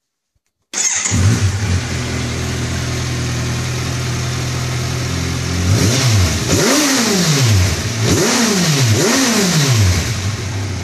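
Kawasaki Versys 1000 inline-four fitted with a DanMoto aftermarket exhaust, starting about a second in and idling steadily, then blipped three times, the pitch rising and falling each time, before dropping back to idle. Its note is a little burblier and deeper than the standard exhaust.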